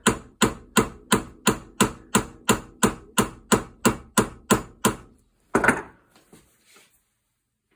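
A small hammer tapping on metal in quick, even strokes, about three a second, percussively shocking a rust-seized screw to free it. The tapping stops after about five seconds, and one heavier knock follows.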